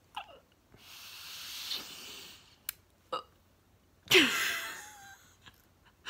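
A woman's emotional breathing without words: a long breathy exhale about a second in, then a sharp gasp with a short falling voice about four seconds in.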